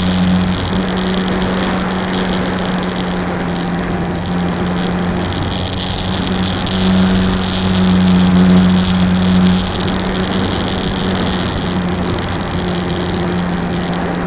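The electric motor and spinning propeller of a HobbyZone Super Cub RC plane droning steadily in flight, picked up by a camera mounted on the plane, with rushing air. The drone gets louder for a couple of seconds past the middle, as with a touch more throttle.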